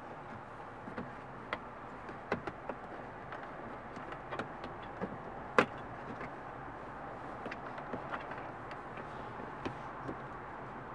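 Hands fitting a rubber mat and handling plastic parts in a Tesla centre console: scattered light clicks and taps, with one sharper click about five and a half seconds in, over a steady low hiss.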